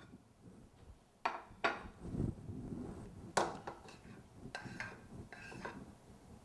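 A kitchen knife knocking on a wooden cutting board as potatoes are cut into small cubes: a handful of sharp, irregular knocks with low clatter in between.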